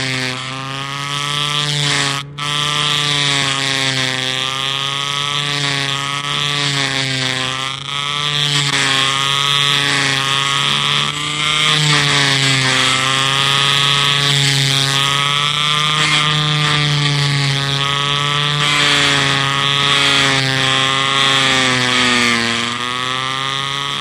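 Electric sander running steadily, a motor hum whose pitch wavers slightly up and down under a bright hiss. It drops out for an instant about two seconds in.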